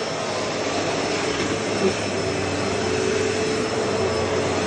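Hoover Elite Rewind upright vacuum cleaner running steadily, its motor giving an even rushing noise with a steady hum that becomes more distinct about two seconds in.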